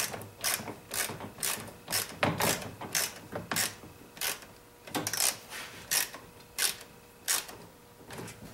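Hand bit screwdriver with a Torx bit driving a screw into the chainsaw's plastic starter recoil housing: a short ratcheting rasp with each twist of the handle, roughly every half second, spacing out a little toward the end.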